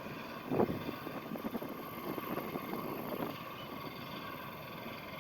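Steady drone of a distant boat engine pushing an empty barge along the waterway, with a brief louder noise about half a second in.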